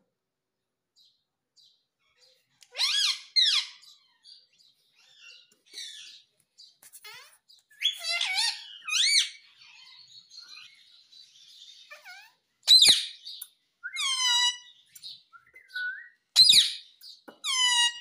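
Indian ringneck parakeet (rose-ringed parakeet) calling: bursts of short, high-pitched squawks and chirps, some sliding up or down in pitch, with pauses between them.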